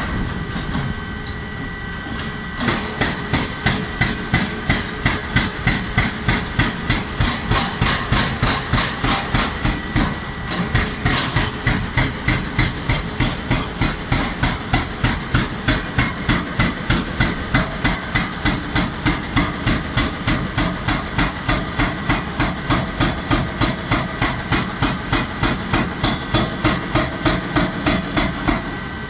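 JCB tracked excavator's hydraulic breaker hammering rock in a steady run of about three blows a second over the running diesel engine. The hammering starts a couple of seconds in, stops briefly about a third of the way through, and ends just before the close.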